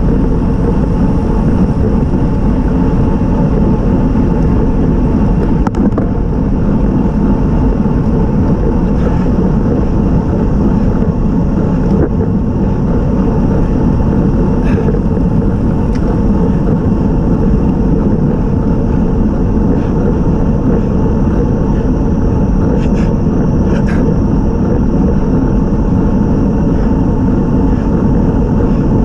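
Steady wind rush and tyre-on-road noise picked up by a camera riding on a road bicycle moving at climbing speed, with a few faint clicks here and there.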